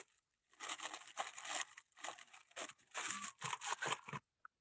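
Small clear plastic bag crinkling and rustling in irregular bursts as hands open it and sort through the small parts inside; the rustling stops a little after four seconds in.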